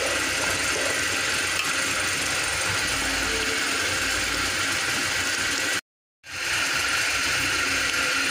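Beef and trotters frying in a pot of masala, a steady sizzling hiss. The sound cuts out for a moment about six seconds in.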